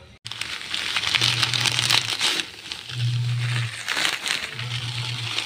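Dry misua noodles being crushed and broken apart by hand over the pot, a crinkling, crunching noise in several bursts.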